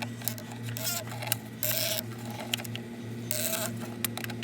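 Oil filter housing being screwed back in and tightened on a Mercedes C300: several short scraping rasps and light clicks over a steady low hum.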